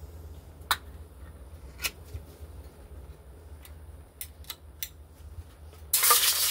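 A few sharp clinks of a metal spoon against an opened soup can. Near the end, canned chicken noodle soup is poured into a hot, empty stainless pan on a butane stove and starts sizzling loudly, a sign that the pan is very hot.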